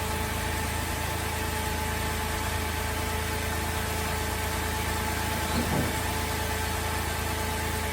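Holden VZ Adventra's Alloytec V6 idling steadily after a faulty ignition coil has been replaced: the earlier rough-running misfire is cured and the idle is even.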